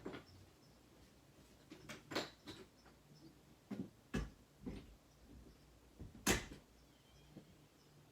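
A scattering of short, sharp clicks and knocks, like small objects being handled or set down. The loudest comes about six seconds in.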